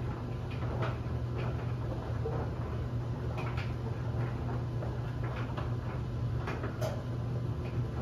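LG DLE7300WE electric dryer running with its drum tumbling a load of bed linens: a steady low hum with scattered light ticks and taps at irregular moments.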